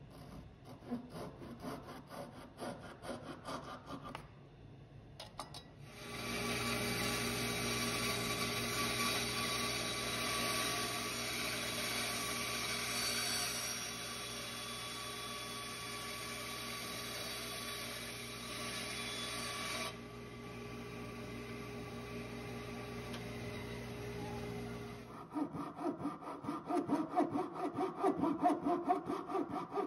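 A fine-toothed handsaw cutting a walnut dowel pin in quick rasping strokes, then a bandsaw running steadily with a constant hum for most of the stretch. About 25 seconds in, the hand sawing comes back in fast, loud strokes.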